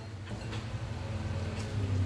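A low steady hum under faint small clicks and scrapes of a knife and cutlery at a table.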